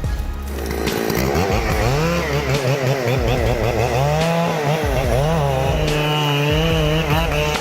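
Chainsaw engine running at high revs, its pitch wavering rapidly up and down under load as it cuts into wood.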